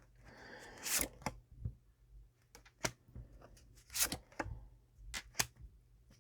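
Tarot cards being handled on a table: a handful of soft, faint clicks and rustles, spread unevenly through the pause.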